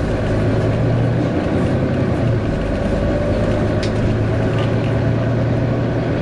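Volvo B9TL double-decker bus's engine cooling fan running with a steady hoover-like drone over its diesel engine as the bus drives, heard from inside the lower deck.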